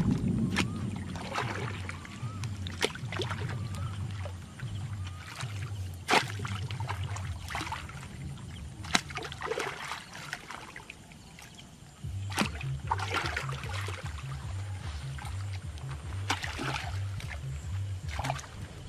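Long-handled hoe chopping into wet mud in a shallow stream, with irregular sharp splashes and sloshing of water over a low, uneven rumble.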